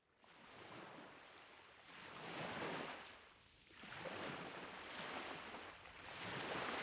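Ocean surf: waves washing in and drawing back, the rush of water swelling and fading every second and a half or so.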